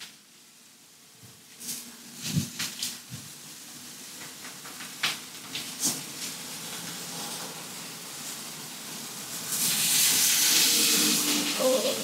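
Basting liquid hissing and sizzling on a hot gas grill as it is brushed over a rabbit, with a louder burst of sizzling about ten seconds in. A few sharp clicks in the first half come from the basting brush knocking against a metal bowl.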